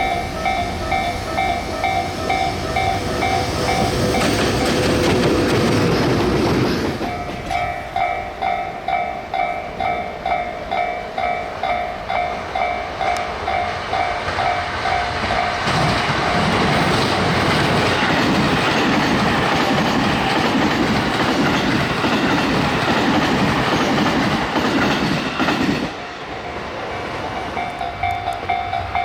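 Japanese level-crossing warning bell ringing in steady pulses throughout, with a train passing about 4 seconds in and a longer train passing from about 16 seconds, its wheels clacking rhythmically over the rail joints and drowning out the bell, which is heard again near the end.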